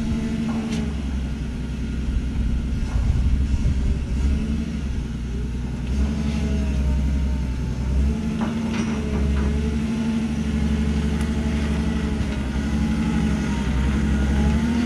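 Forklift engine running, revving up and dropping back several times as the forklift maneuvers, with a few metal clanks and knocks, several close together about two-thirds of the way through.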